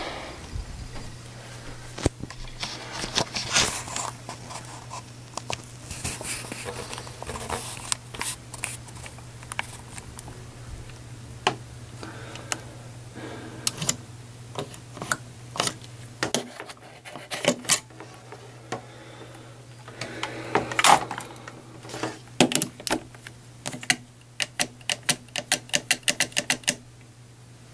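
Plastic plugs and a plug adapter clicking and rattling against a wall outlet as they are handled, pulled and pushed in, with a fast run of clicks near the end. A steady low hum runs underneath.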